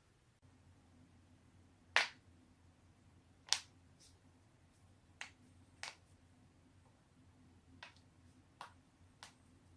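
Human joints cracking: a series of about seven sharp single pops at irregular intervals, the two loudest in the first half and the rest fainter, over a faint steady background hum.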